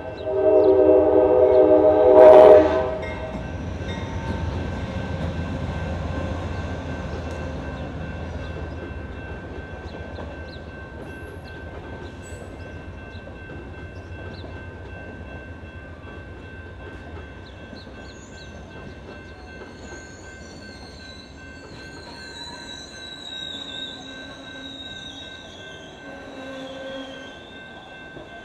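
Amtrak passenger train arriving: the locomotive's air horn sounds a loud multi-tone chord that cuts off about two and a half seconds in. Then the bilevel passenger cars roll past, the rumble fading as the train slows, with a faint high wheel squeal in the second half.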